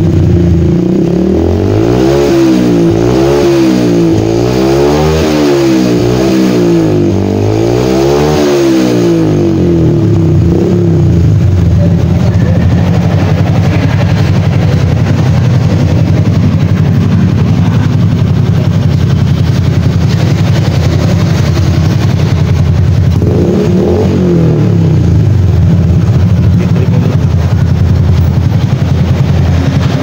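Honda Wave 125 single-cylinder four-stroke engine breathing through an aftermarket dual-tip muffler, revved up and down about four times in quick succession, then settling to a steady idle, with one more short rev later on.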